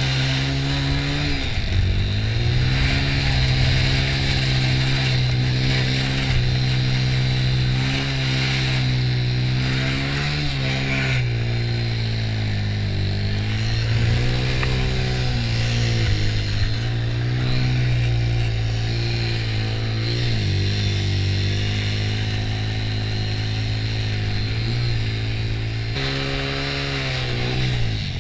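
1996 Honda TRX90 ATV's small four-stroke single-cylinder engine running under way, its pitch holding steady and dipping briefly several times as the throttle is eased off and opened again.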